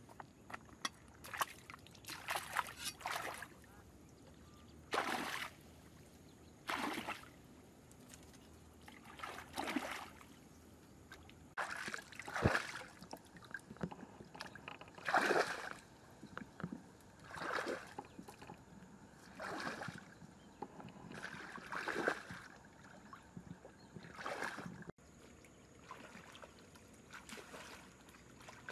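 A person wading through shallow water, each stride making a sloshing swish, roughly every two seconds.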